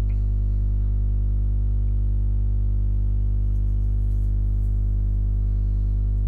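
Background music: a low synthesizer note held steady.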